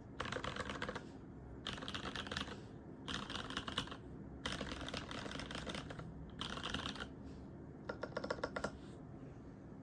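Typing on a custom Alice-layout mechanical keyboard with a polycarbonate case, an aluminium plate and lubed Cherry MX Brown tactile switches. It comes as about six quick runs of keystrokes with short pauses between them.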